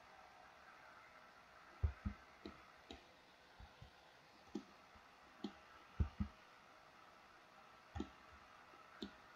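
Computer keyboard keys and mouse buttons being pressed: about a dozen short, separate clicks and taps, some with a dull thud, coming irregularly over a faint steady hiss.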